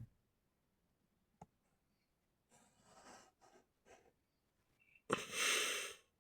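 A person's loud breath close to the microphone, lasting about a second, near the end, with fainter breathing sounds a couple of seconds earlier.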